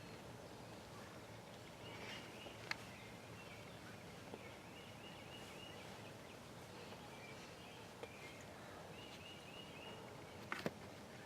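Faint wild turkey calls: short runs of quick notes, twice. A sharp click sounds about three seconds in and a double click near the end.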